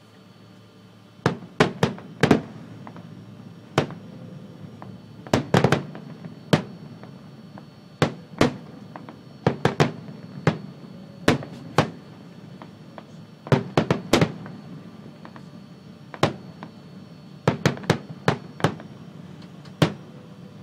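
Fireworks display: aerial shells bursting in sharp, irregular bangs, often in quick clusters of two to four, over a low rumble that carries on between the bursts.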